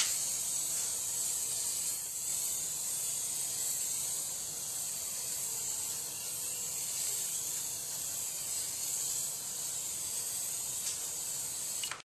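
Aerosol can of chalkboard spray paint spraying in one long, steady hiss that wavers slightly as the can is swept back and forth.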